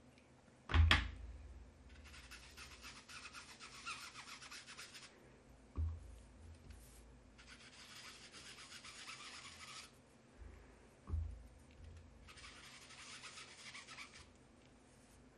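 Round sponge dauber rubbed over card stock in quick little strokes, inking a stamped image. It comes in three bouts of a few seconds each, and a low thump comes before each bout, the loudest about a second in.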